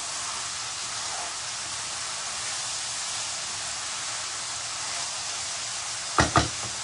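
Spice paste sizzling steadily in hot oil in a pan as it is sautéed to cook off its raw smell, with two sharp knocks close together near the end.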